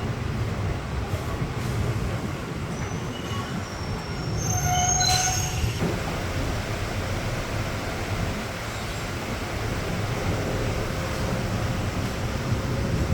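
DEMU diesel passenger train running on the line, with a steady low rumble of the wheels and engine. About four to six seconds in, a brief high-pitched wheel squeal cuts in and stops.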